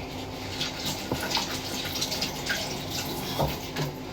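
Faint dripping or trickling water: irregular small drips and ticks over a low, steady hiss.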